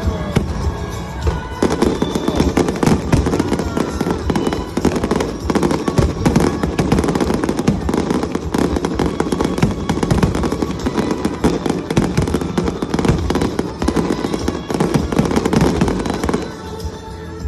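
Fireworks display: a dense, continuous volley of bangs and crackles that thickens about a second and a half in and thins out near the end, with music playing underneath.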